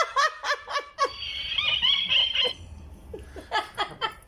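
A woman laughing heartily in quick bursts, rising to a higher held squeal about halfway through.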